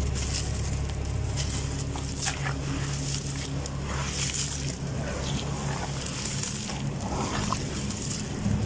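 Hands crushing and churning crumbled gravelly bajri chunks in a basin of water: wet splashing and sloshing of muddy water with gritty crunches, over a steady low hum.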